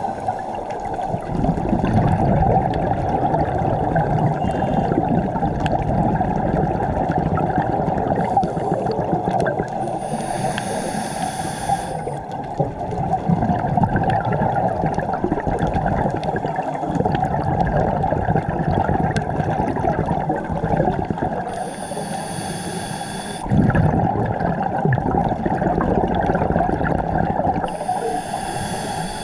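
Underwater sound of a diver's camera: a steady low rush of water, broken three times by hissing breaths of about two seconds each, about a third of the way in, about three-quarters of the way in, and near the end.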